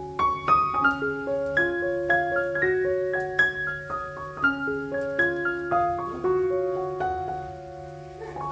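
Piano background music: a melody of held piano notes.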